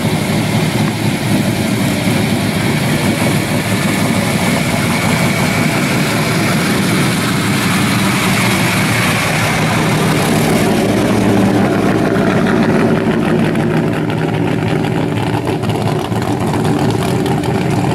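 1977 Ford F-100 pro street pickup's engine running steadily at low speed as the truck creeps past.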